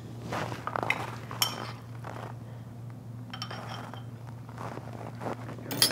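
A metal spoon stirring and scraping through rehydrated beans in a small ceramic bowl, with a few scattered light clinks of spoon on bowl, over a steady low hum.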